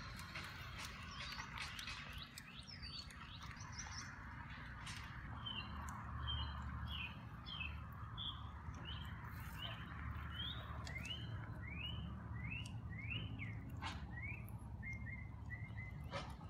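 Wild birds chirping outdoors: a quick run of short, repeated chirp notes, several a second, over a steady low rumble. A couple of sharp clicks come near the end.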